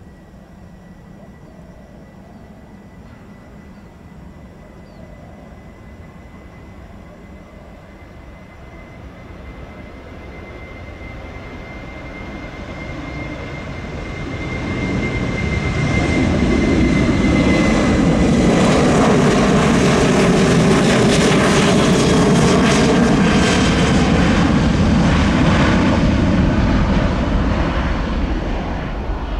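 Boeing 737-800's CFM56-7B turbofan engines at take-off thrust: a steady high whine at first, then jet engine noise that builds over about six seconds as the aircraft rolls down the runway and passes, with sweeping tones as it goes by, loudest for about ten seconds and easing slightly as it lifts off near the end.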